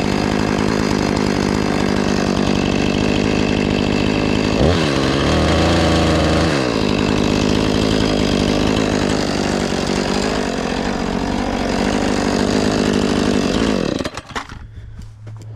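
Husqvarna 450 Rancher two-stroke chainsaw running while cutting a fallen tree. A few seconds in it revs up higher, holds, then comes back down. Near the end the loud running drops away sharply.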